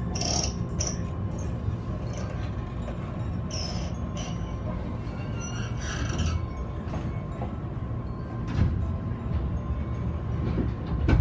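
Inside a moving Sanyo Electric Railway train carriage: a steady low running rumble, with a faint steady tone and short high-pitched creaks and squeals a few times, about three and a half and six seconds in. The creaking is the strange noise heard from the train.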